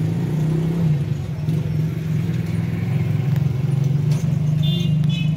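Steady low rumble of a running engine, with a short high-pitched beeping near the end.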